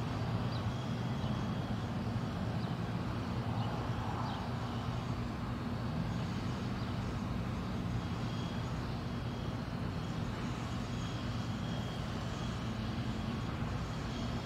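Steady low hum and rumble of outdoor urban background noise, with no passing events.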